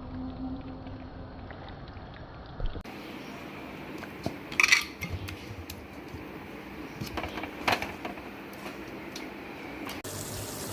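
Kitchen utensils and cookware clinking and knocking now and then, with several sharp clinks standing out over a steady background hiss.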